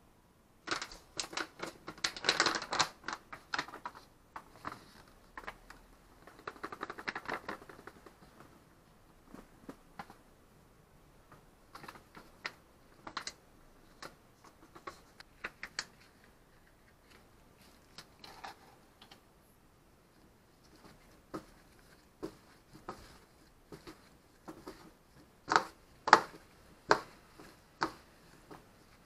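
Irregular clicks, taps and rustles from food prep: frying mix shaken from its plastic bag into a plastic bowl, then a gloved hand tossing Korean melon peel strips in the powder. The sharpest taps come near the end.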